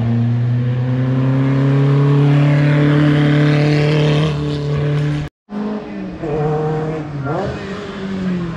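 Historic racing car's engine pulling hard uphill past the listener, its note held in one gear and slowly rising. The sound cuts out briefly about five seconds in; then a second racing car's engine is heard, its pitch dropping and climbing again about seven seconds in as it changes gear.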